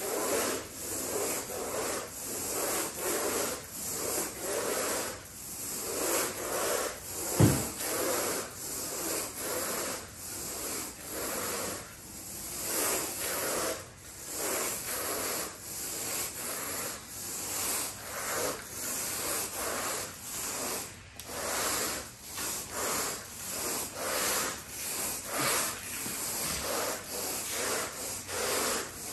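Carpet rake dragged back and forth through the pile of freshly cleaned carpet, grooming it in repeated rubbing strokes about one a second. There is a single sharp knock about seven and a half seconds in.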